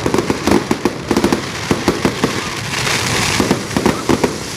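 Many New Year fireworks and firecrackers going off together: a dense, irregular stream of bangs and pops, with a hissing rush about three seconds in.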